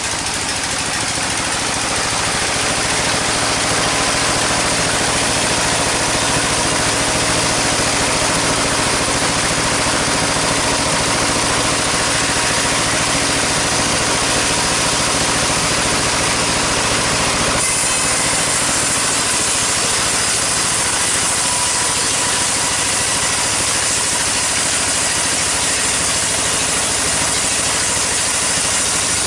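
Sawmill saw machinery running steadily: a loud, even hum with a hiss over it. A little past halfway the hiss turns brighter and stays that way.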